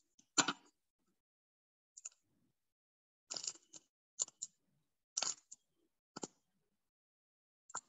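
Scattered short clicks and rustles, about seven in all, each brief, with dead silence between them.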